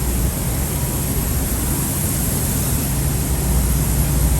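Heavy truck diesel engine idling steadily: a low, even hum under a steady hiss.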